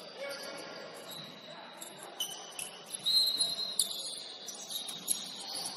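Basketball sneakers squeaking on a gym floor: a series of short high squeaks at varying pitch, loudest about halfway through.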